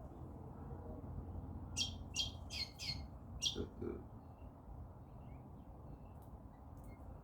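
Lorikeet giving five short, high-pitched calls in quick succession about two seconds in, followed by a few faint chirps.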